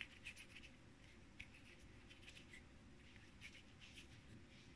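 Faint, irregular little sticky clicks and crackles of homemade slime, made of Play-Doh and shaving foam, being kneaded and pressed between the hands.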